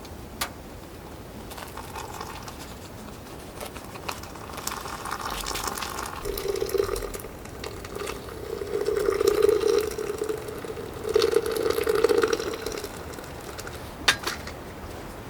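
Liquid being poured or run into a container in three or four spells, each swelling and fading, with a couple of sharp clicks near the start and near the end.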